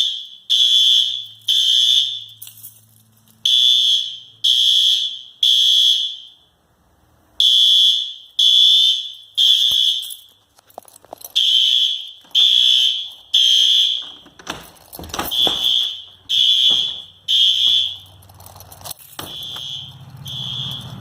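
Fire alarm sounding the temporal-three evacuation pattern: three loud, high-pitched beeps, a pause, then three more, repeating. It grows a little fainter in the last few seconds, with some knocks and rustling in the second half.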